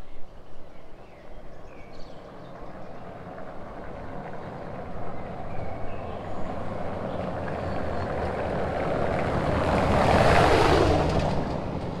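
A vehicle passing close by: a rushing noise that swells over several seconds, peaks about ten seconds in, then fades. Faint bird chirps near the start.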